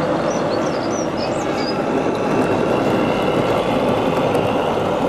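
1:25-scale model train running along its track, a steady rolling rumble with a faint high tone from the wheels on the rails.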